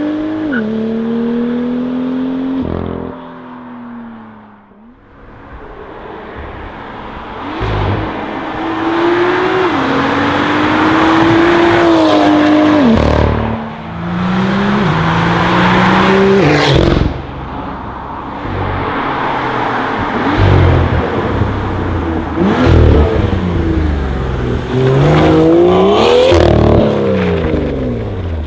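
BMW F87 M2's turbocharged straight-six running through an iPE titanium exhaust, accelerating hard through the gears. The revs climb and drop back at each upshift, fade as the car pulls away, then build again as it returns. Near the end the revs rise and fall quickly over and over.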